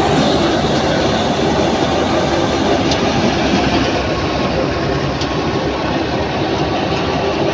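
Tractor-driven wheat thresher running steadily under load as wheat straw is fed into it: a loud, even mechanical rumble and rattle, with a couple of faint clicks.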